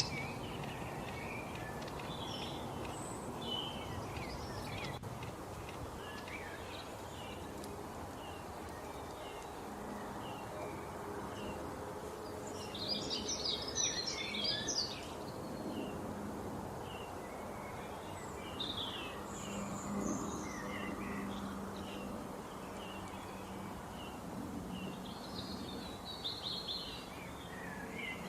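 Several birds chirping and singing in short calls, with a denser flurry of song about halfway through, over steady background noise.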